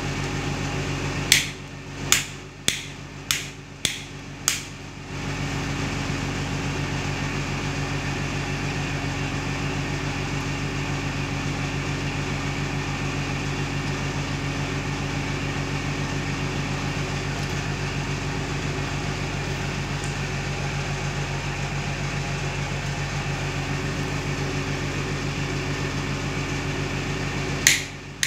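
Plastic modular rocker switch flicked on and off repeatedly: six sharp clicks about half a second apart in the first five seconds, then more clicks near the end. A steady background hum fills the long stretch in between.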